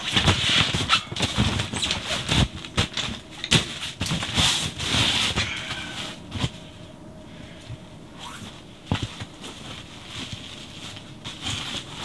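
Camping gear being handled inside a canvas tent: rustling and irregular knocks, quieter after about six seconds.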